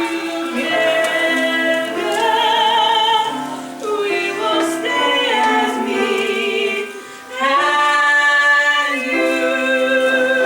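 Voices singing a stage-musical song, holding long notes with vibrato, with a brief break about seven seconds in before the singing comes back in strongly.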